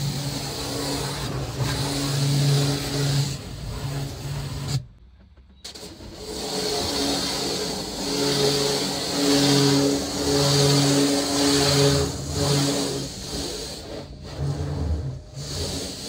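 Starq W8 electric high-pressure washer running, its pump motor humming in swells while the water jet hisses and beats against the car's window glass, heard from inside the car's cabin. The sound drops out for about a second around five seconds in.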